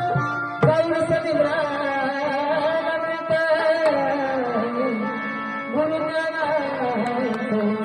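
A devotional song on the importance of the guru: a singer holding long, gliding notes over drum strokes and instrumental accompaniment.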